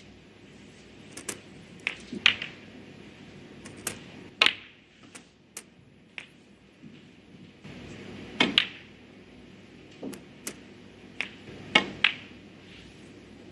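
Snooker balls clicking: the cue tip striking the cue ball and the balls knocking together, a dozen or so sharp separate clicks, some in quick pairs, as balls are potted in a break.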